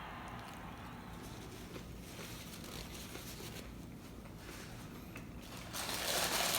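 A person eating a taco: quiet chewing with faint clicks, growing louder and crunchier near the end.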